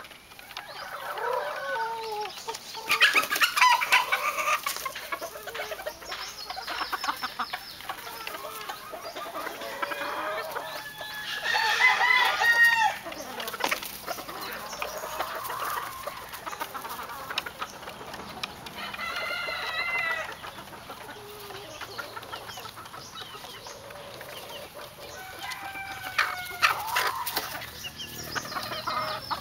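Young gamefowl cockerels clucking as they feed, with several crows among the flock, the loudest about three seconds in, around twelve seconds, around twenty seconds and near the end.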